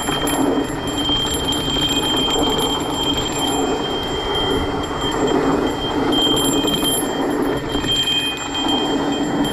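Mountain bike riding fast down a dry dirt trail: tyres rumbling and rattling over the dirt, with a steady high buzz that comes and goes.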